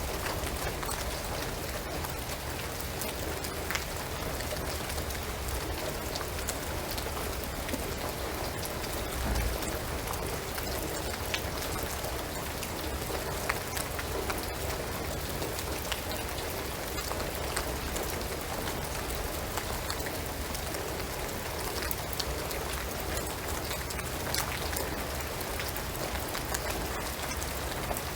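Steady rain falling on a shingled roof and pine trees, an even hiss with scattered sharper drips.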